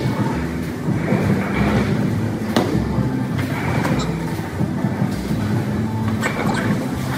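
Steady low rumble of bowling balls rolling down the lanes and through the ball return, with a sharp knock about two and a half seconds in.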